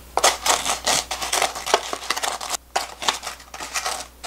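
A fried twisted doughnut is turned and rolled in granulated sugar with tongs inside a plastic tub. It makes a dense, gritty scraping and rattling of sugar grains and tongs against the plastic, with a short break a little past halfway.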